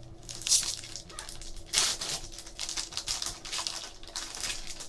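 Trading cards and their foil pack wrappers being handled: a run of quick rustles and flicks, with two louder swishes about half a second and about two seconds in.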